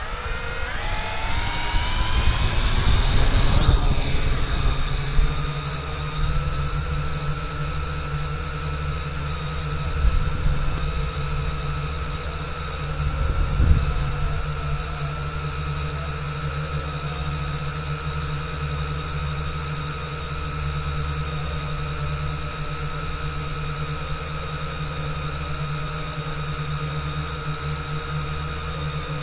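Drone motors and propellers spinning up, their whine rising in pitch at lift-off, then a steady whine in flight, heard close from the camera mounted on the drone. It gets briefly louder twice, about ten and fourteen seconds in.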